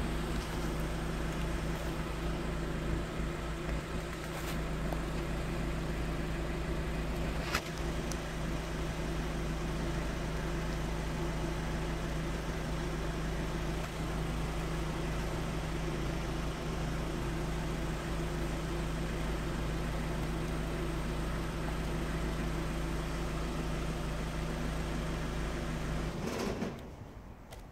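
A steady low mechanical hum with a few pitched tones, like a running motor, broken by two faint clicks; it falls away near the end.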